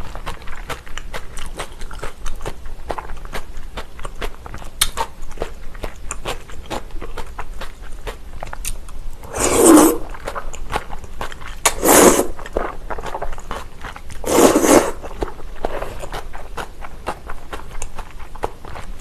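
Close-miked chewing of agar-agar noodles in cold soybean soup: a steady run of small wet mouth clicks. Near the middle come three loud slurps of noodles, each under a second and about two and a half seconds apart.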